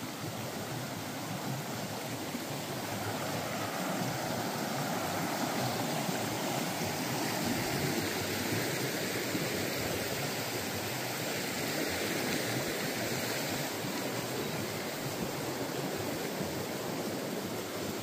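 River water rushing steadily over rocks, a little louder a few seconds in and then easing slightly.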